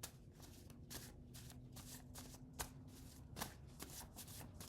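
Faint hand shuffling of a deck of cards: a run of soft, irregular flicks and taps, several a second.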